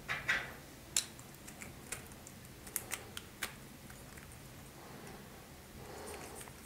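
Small 3D-printed plastic parts clicking and tapping as they are picked up off a wooden tabletop and handled: a scattered run of sharp clicks in the first three and a half seconds, then softer rubbing of plastic near the end.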